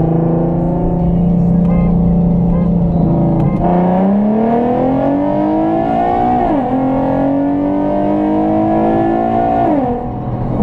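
Nissan 370Z's 3.7-litre V6 with a full aftermarket exhaust and intakes, heard from inside the cabin. It holds steady at a 20 mph roll, then about three and a half seconds in goes to full throttle and the engine note climbs. The seven-speed automatic makes two quick upshifts, one past the middle and one near the end.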